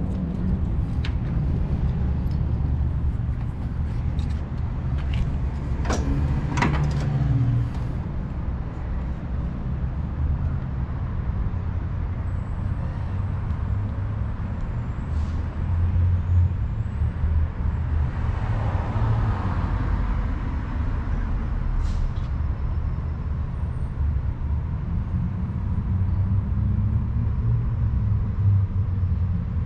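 1954 Jaguar XK120 race car's twin-cam straight-six idling steadily, with a few sharp clicks about six seconds in as the bonnet strap and catch are undone.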